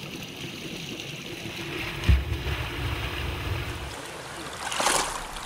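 Water sloshing and splashing as a wooden-framed mesh net is worked through shallow pond water. A sudden low thump comes about two seconds in, and a rushing splash near the end.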